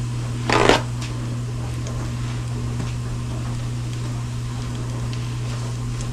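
A sheet of paper towel ripped off the roll in one short tear about half a second in, then paper rustling, over the steady low hum of a dishwasher running.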